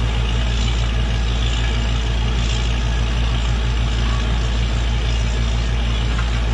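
Truck-mounted water well drilling rig running with a steady low engine drone.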